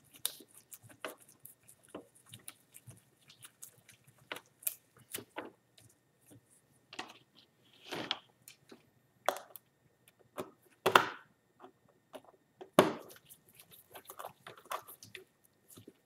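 Small screwdriver clicking and scraping as the screws of a plastic tablet back cover are driven in. Gloved hands knock and rub on the case a few times, louder around the middle and near the end.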